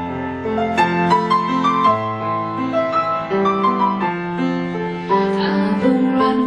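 Solo piano playing a slow passage, a melody over held chords.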